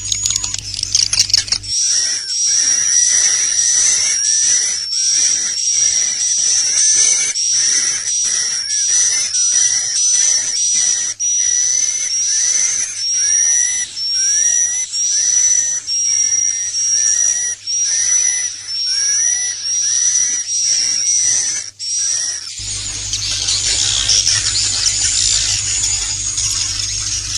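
Recorded swiftlet calls, the 'inap' roosting sound used in swiftlet houses to lure birds: high-pitched twittering chirps repeated in quick succession. About two seconds in and again near the end the track switches to a denser, hissier chatter over a low hum.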